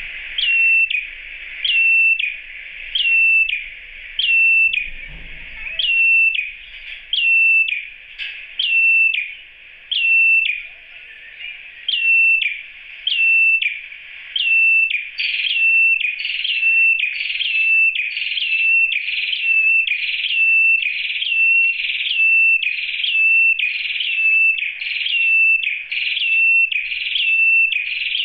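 A red-headed prenjak (ciblek kepala merah) calls for a female. It repeats one short, high call about once a second, each a quick upward flick that settles into a brief level whistle. The calls come slightly faster in the second half.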